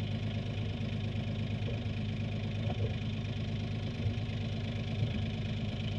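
Small inboard sailboat engine idling steadily with its gearbox unloaded, the propeller shaft disconnected, while it is checked for a clunking fault; no clunk stands out.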